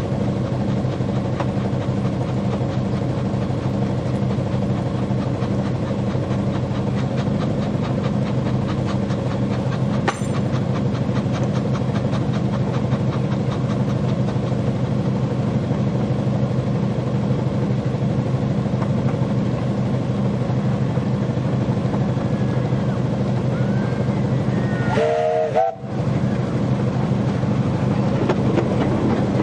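Typhoon, a 15-inch-gauge 4-6-2 steam locomotive, working a passenger train away under steam: a steady, fast chuffing exhaust with the carriages rolling along the rails behind.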